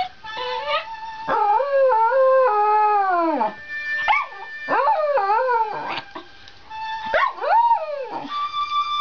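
Shetland Sheepdog howling along to music with long held notes: first a long howl that falls away at its end, then a wavering howl, then two shorter howls near the end.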